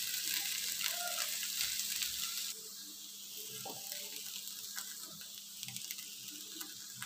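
Vegetables and scrambled egg sizzling in a wok over full flame, a steady high hiss. About two and a half seconds in the sizzle drops to a softer hiss with light rustles and ticks as boiled noodles are dropped into the pan, over a steady low hum.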